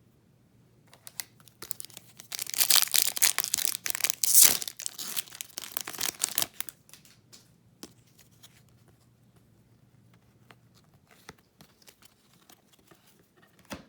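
Hockey card pack wrapper being torn open and crinkled: a dense crackling that lasts about five seconds, loudest about four and a half seconds in. After it come only faint scattered ticks and rustles.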